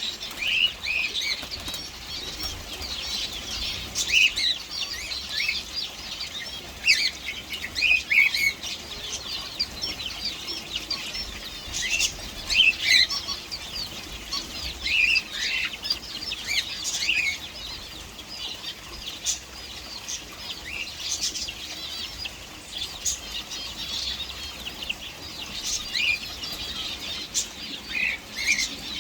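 Small birds chirping, with many short, high calls overlapping continuously.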